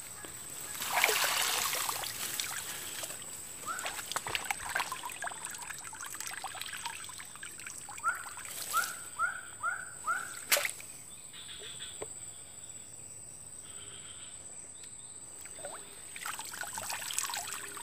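Water trickling and splashing from a wire-mesh fish trap as it is lifted out of a shallow, grassy stream, with rustling grass and a few sharp clicks and knocks. About eight seconds in, a bird chirps five times in quick succession.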